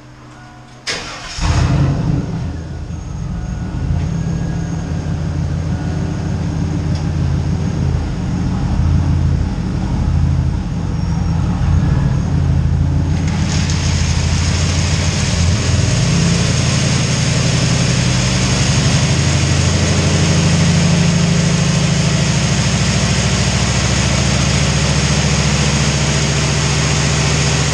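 Turbocharged 6.0-litre V8 pickup engine running loud and steady on a chassis dyno, after a sharp knock about a second in. About halfway through, a loud high hiss joins the engine and holds.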